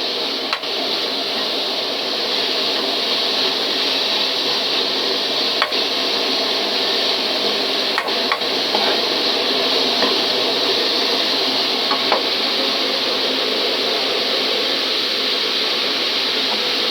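Sliced pork neck sizzling in a hot pan while being stirred with a spatula, with a few sharp knocks of the spatula against the pan.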